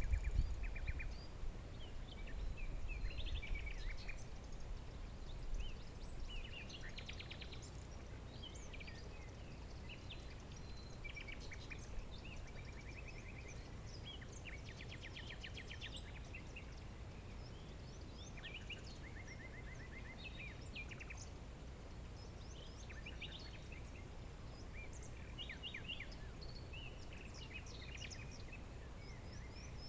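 Several small songbirds chirping and giving short, quick trills, scattered throughout over a steady soft outdoor background. A low rumble fades out in the first few seconds.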